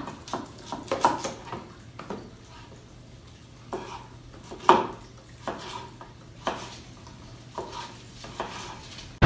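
Knife cutting a vegetable on a cutting board: irregular sharp taps and knocks of the blade striking the board, the loudest about halfway through.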